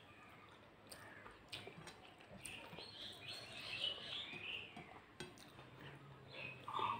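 Faint sounds of eating rice by hand: fingers mixing rice on a plate and chewing with the mouth closed, with a few small sharp clicks. A cluster of short, high chirp-like squeaks comes a little past the middle.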